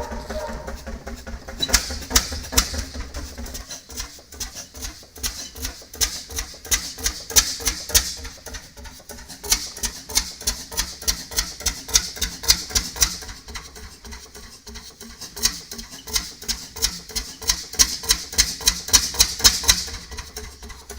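An old engine running with a rapid, even clatter of sharp mechanical clicks over a low pulsing hum; the clicking swells louder and fades back several times.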